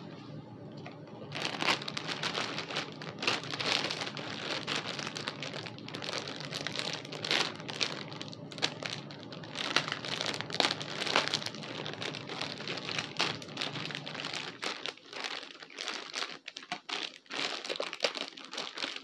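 Packaging being handled and opened by hand, crinkling and rustling irregularly, starting about a second in.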